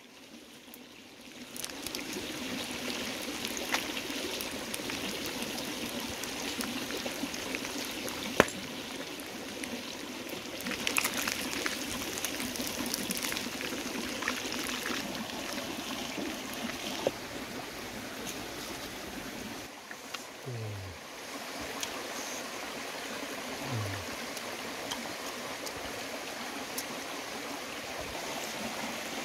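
Hot oil sizzling in a wok as pieces fry and are lifted out with a metal ladle, over the steady rushing of a stream. A single sharp click comes about eight seconds in.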